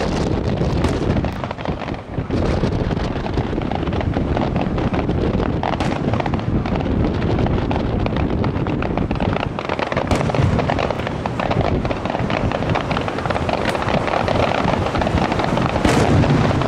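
Aerial firework shells bursting in quick succession, a dense, almost unbroken run of bangs with a brief lull about two seconds in.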